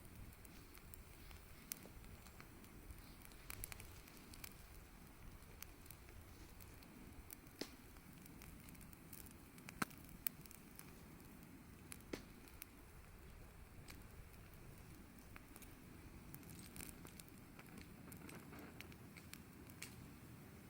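Wood fire burning quietly, crackling with scattered sharp pops, two louder snaps about ten seconds in.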